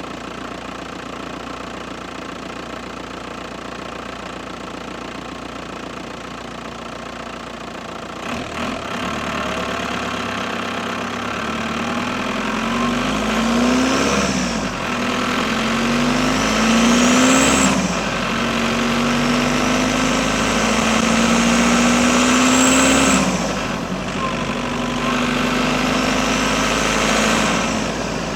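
Audi A6 4F's 2.0 TDI Pumpe-Düse four-cylinder diesel engine with its turbocharger, running steadily for about eight seconds, then brought up in revs several times. A high turbo whistle rises with each pull and cuts off sharply as the revs drop, four times.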